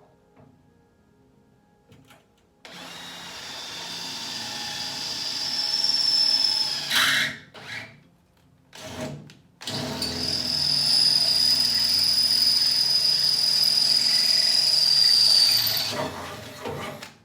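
Power drill boring a hole for the Humvee's fender mounting. Its motor whine climbs in pitch and level for about four seconds, stops, gives a short burst, then runs steadily for about six seconds before winding down near the end.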